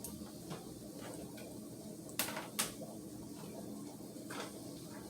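Kitchenware knocking: two sharp clinks about half a second apart a couple of seconds in, and a fainter one later, over a steady low hum.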